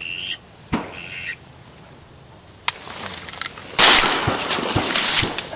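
Mallard duck calling: two short high whistle-like notes near the start and a sharp click, then from about four seconds in a loud run of repeated quacks lasting over a second.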